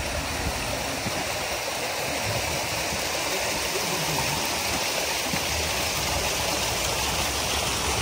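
Water pouring steadily from inlet spouts into concrete trout-farm raceways: a continuous splashing.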